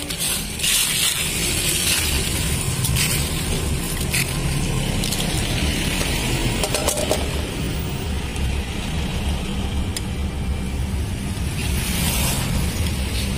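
Steady low rumble of passing road traffic, with a few light clinks of an aluminium pot lid and a spoon on a plate.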